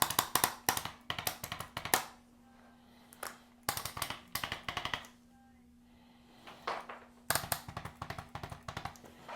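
Spinal joints cracking under a chiropractic adjustment: four bursts of rapid sharp pops, most lasting a second or more, with short gaps between them.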